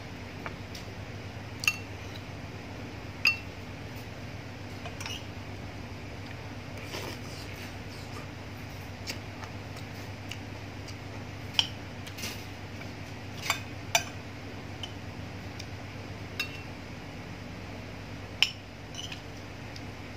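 Metal spoon and fork clinking against a ceramic plate and soup bowl: sharp, short ringing clinks at irregular intervals, several seconds apart, over a steady low hum.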